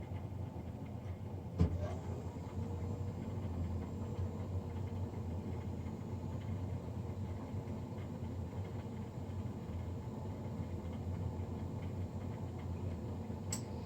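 Navien NCB-240 combi boiler's combustion fan running with a steady low hum, the loud fan noise the owner is documenting. There is a sharp click about one and a half seconds in and another just before the end.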